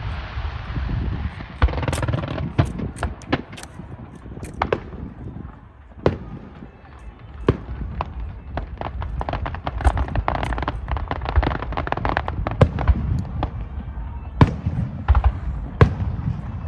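Aerial fireworks going off: a stream of sharp bangs and booms at irregular intervals over a low rumble, with stretches of dense crackling about two seconds in and again from about nine to thirteen seconds in.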